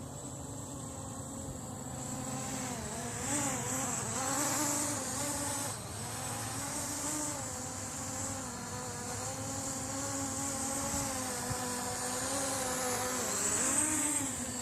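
Blade 200 QX quadcopter in flight, its small motors and propellers buzzing steadily. The pitch wavers up and down as the throttle keeps correcting against gusty wind.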